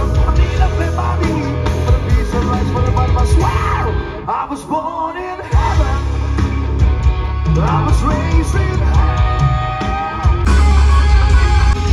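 Live rock band playing on an outdoor stage: a singer over a loud band with heavy bass. The bass drops out for about a second and a half around four seconds in, then comes back in.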